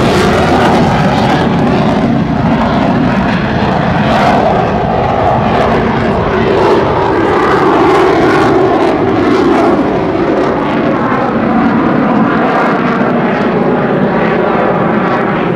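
F-18 Hornet's twin jet engines running at high power as the fighter manoeuvres overhead: a loud, continuous roar whose high hiss fades after the first second or two.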